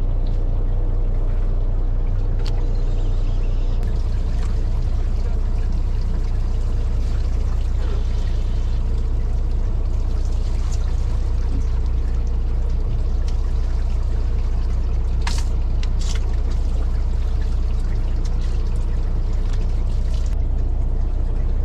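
Fishing boat's engine running steadily with water rushing past the hull. The engine's low hum steps up a little about four seconds in, and a couple of sharp clicks come a little past the middle.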